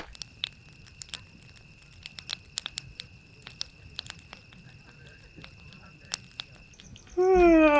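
A bonfire of sticks and dry leaves crackling with scattered sharp pops, over a steady high insect trill. Near the end a loud, long voice-like call slides down in pitch.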